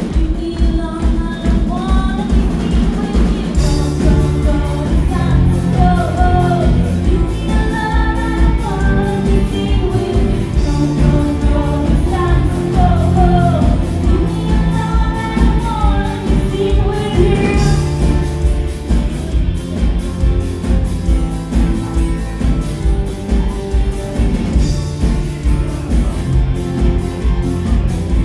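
Live rock band playing a song: a woman singing over acoustic and electric guitars, bass guitar and a drum kit keeping a steady beat. Over the last several seconds the singing stops and the band plays on.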